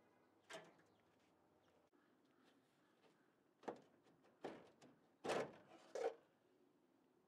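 A few short knocks and creaks as a roof bow in a 1929 Ford Model A body is tugged and rocked by hand to work it loose. The loudest two come about a second apart near the end.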